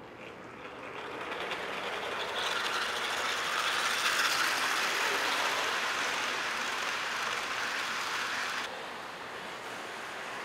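Model train rolling along layout track. The wheels run on the rails with a steady rushing clatter that swells as the train passes close, then drops off suddenly about three-quarters of the way through.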